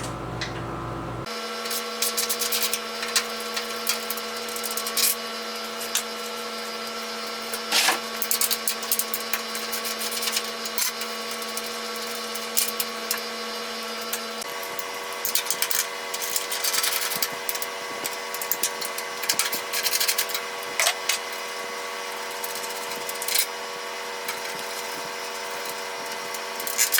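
Scattered metallic clicks, knocks and clatter of hand tools working as the benchtop planer is unbolted from its stand. Under them is a steady hum of several held tones that shifts once about halfway through.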